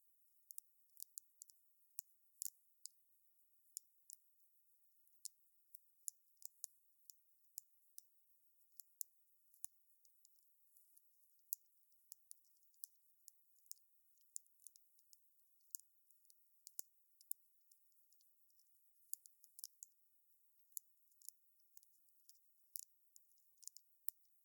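Wood fire crackling: faint, irregular sharp pops and snaps, high and thin, with no low roar of flame beneath.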